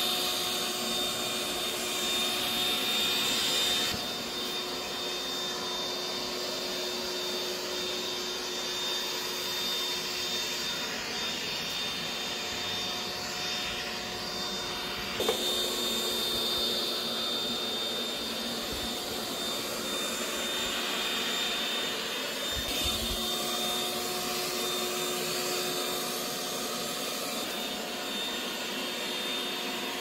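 Kogan SmarterHome LX16 robot vacuum cleaner running: a steady suction rush with a high, thin whine and a lower hum. The level drops a little about four seconds in, and a single sharp knock comes about halfway through.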